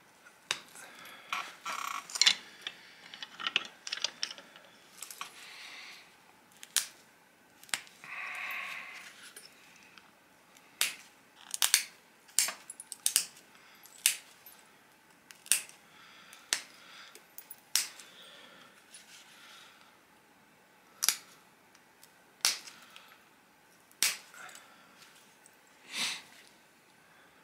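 Pressure flaking a stone disc with an antler tine: sharp clicks and snaps as small flakes pop off its edge, irregularly spaced, with a little scraping of the tool on the stone between them.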